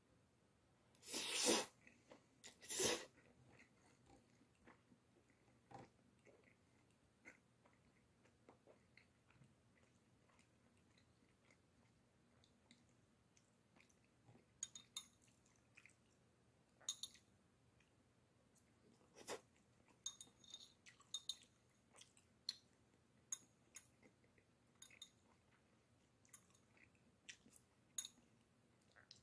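Jjajang ramen noodles slurped loudly twice near the start. After that comes quiet chewing, with many short clicks in the second half as metal chopsticks tap and scrape a ceramic bowl.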